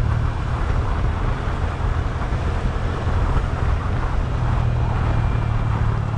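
Motor scooter engine running steadily while riding at cruising speed, with wind rushing over the microphone.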